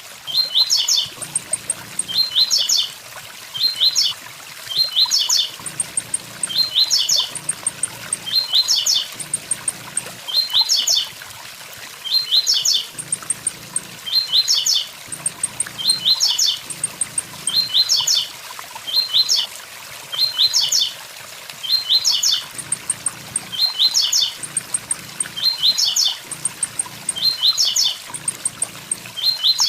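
Blue-black grassquit (tiziu) singing its 'tui tui zel zel' song, a short high phrase repeated about once a second, over the steady rush of a waterfall.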